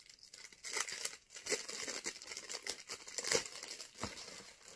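Tissue paper rustling and crinkling as it is handled and pulled aside, in irregular bursts, the loudest about three and a half seconds in.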